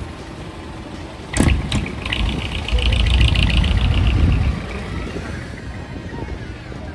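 Small box truck driving past close by, its engine swelling to a loud rumble about halfway through and then fading as it goes away; a sharp crack comes about a second and a half in.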